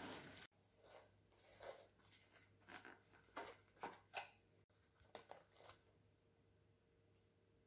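Faint crinkles and light taps of plastic food packaging, a clear plastic tray of pork loin cutlets and a wrapped block of mozzarella, being handled and set down on a cloth-covered counter. A short, louder rustle comes right at the start.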